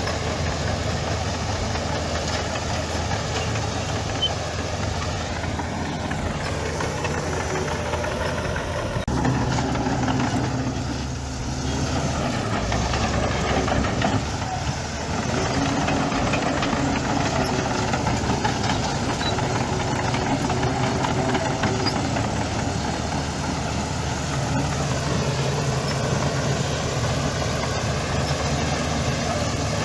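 Heavy diesel engine of earthmoving machinery running under varying load. Its pitch shifts several times, with a short drop in level around the middle.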